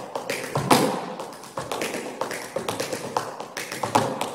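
Tap shoes striking a studio floor in a quick, uneven run of taps as dancers move through a tap combination, with a couple of heavier strikes about two-thirds of a second in and near the end.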